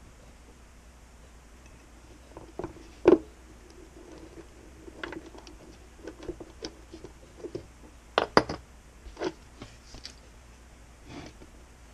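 Irregular clicks, taps and knocks of hands and a small screwdriver working on an OO-gauge model train's plastic chassis and motor bogie. The two loudest knocks come about three seconds in and about eight seconds in.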